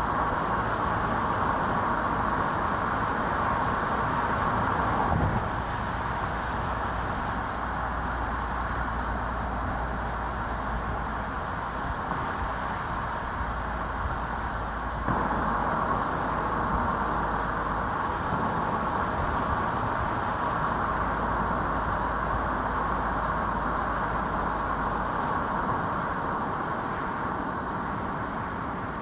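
A car driving along a road: steady tyre and road noise over a low rumble, with a small bump about five seconds in and another about fifteen seconds in.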